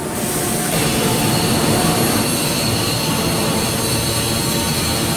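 Steady mechanical rumble with a hiss over it, growing louder about a second in and then holding.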